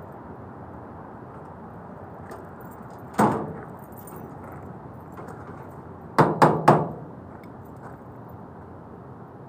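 Sharp knocks on the sheet-metal casing of an LG outdoor air-conditioning unit as it is handled: one about three seconds in, then three quick ones about six seconds in, over a steady background noise.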